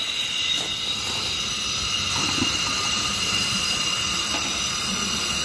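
Compressed-air EXAIR Reversible Drum Vac running in vacuum mode: a steady rushing hiss of air as it sucks liquid up its hose into the drum.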